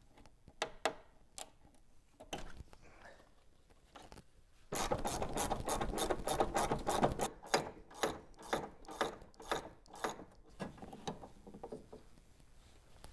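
Socket ratchet clicking as it turns out the half-inch bolts holding the washer fluid reservoir. There are a few scattered clicks and knocks at first, then a fast, loud run of ratchet clicks from about five seconds in to about ten seconds, easing off to lighter clicks near the end.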